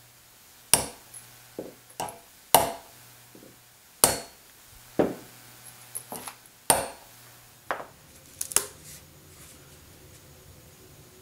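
Hammer striking steel letter punches into the end grain of a Douglas fir post: about ten sharp taps at uneven intervals, each with a short ring, stopping about nine seconds in.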